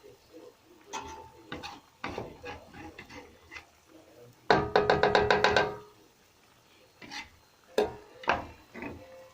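Cooking utensil knocking against a stew pot: scattered knocks, then a quick run of about ten ringing taps about halfway through, then a few more knocks near the end.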